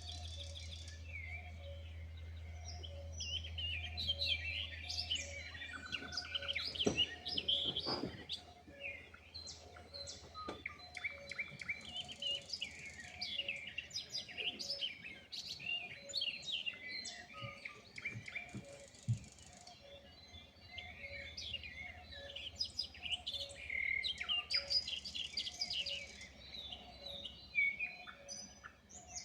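Dawn chorus of several wild songbirds chirping, trilling and calling over one another, with busy stretches and quieter gaps. Underneath runs a low rumble, strongest in the first few seconds, and a faint low note that repeats about once a second.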